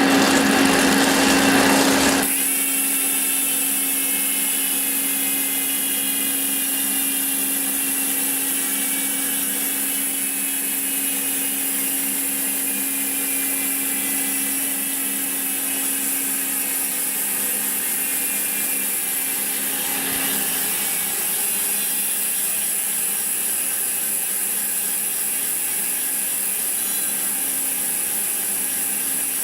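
Koozer XM90 bicycle rear hub freewheeling, its freehub ratchet making a steady fast buzz as the wheel spins on, after about 200 km of hard trail riding. A rougher noise stops sharply about two seconds in, and the buzz then runs on with its pitch sinking slowly as the wheel slows.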